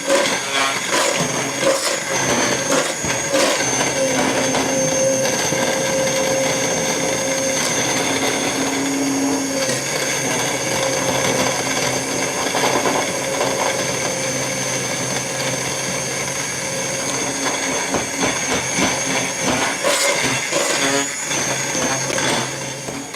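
Immersion blender running steadily in a pot, pureeing boiled broccoli into hot stock; the motor cuts off right at the end.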